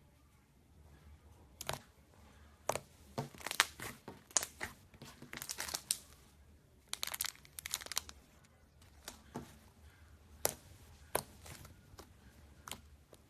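Slime being pressed and stretched by hand, giving an irregular run of sharp crackling pops and short rustling bursts that start about a second and a half in.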